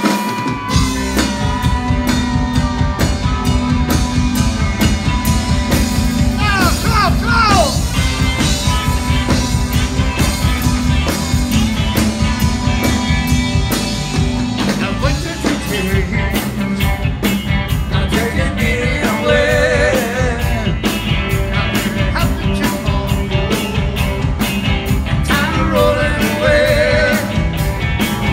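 Live rock band playing: electric guitars, bass and a drum kit keeping a steady beat.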